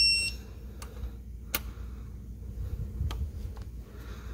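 Snap-on digital torque wrench beeping to signal that the cam-cap bolt has reached the 11 ft-lb setting; the beep is one high steady tone that cuts off just after the start. Then a few sharp clicks as the wrench is worked on the cam-cap bolts, the sharpest about a second and a half in.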